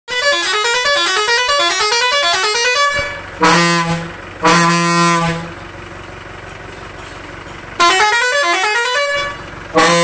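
Custom-fitted multi-tone air horn on a decorated Tata 407 maxi cab. It plays quick rising sweeps, repeated about twice a second for three seconds, then two steady blasts, a short one and a longer one. The sweeps come back near the end, followed by another short blast, with a low steady hum underneath between the horn sounds.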